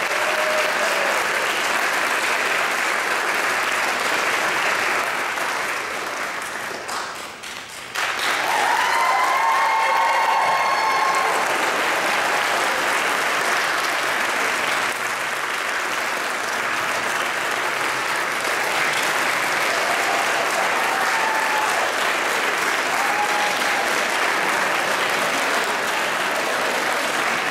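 Audience applauding steadily, with a few voices calling out over the clapping. The applause dips briefly about seven seconds in, then comes back at full strength.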